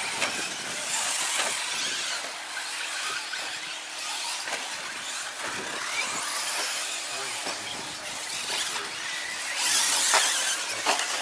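Several electric radio-controlled short course trucks racing on dirt: a high-pitched motor whine that rises and falls with the throttle, with tyres scrabbling on the loose surface. It gets louder about ten seconds in as the trucks come close.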